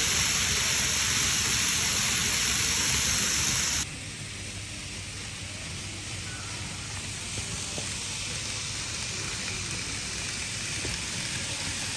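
Steady rushing hiss of N-gauge model shinkansen trains running along the layout track. It cuts off abruptly about four seconds in, leaving quieter room noise with a few faint clicks.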